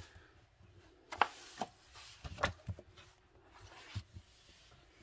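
Paperback coloring book being handled on a wooden desk: pages rustling and a few light knocks as the book is closed and moved off the desk.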